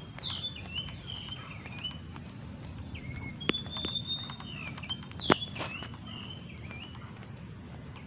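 Several birds chirping and whistling in short rising and falling notes over steady low background noise, with two sharp clicks, the louder one a little past the middle.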